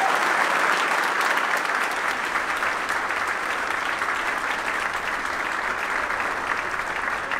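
Crowd clapping and cheering to greet a rocket's liftoff, a dense steady patter of claps.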